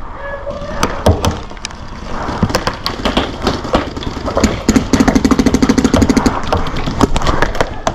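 Paintball markers firing: scattered single shots, then a rapid burst of about a dozen shots a second for nearly two seconds, about halfway through.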